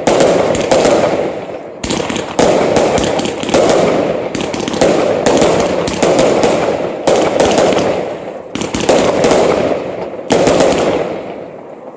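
Aerial fireworks shots bursting overhead one after another, about a dozen loud bangs roughly a second apart, some in quick pairs, each fading out over about a second.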